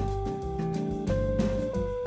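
Instrumental background music: a long held melody note over a bass line, stepping up to a higher note about halfway through.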